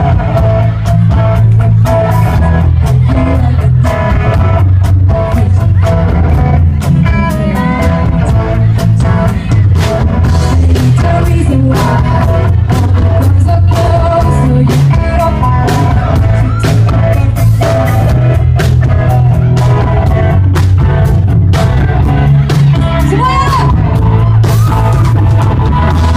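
A rock band playing live, loud and distorted as heard through the recording: drum kit, electric guitars and bass, with singing over the top.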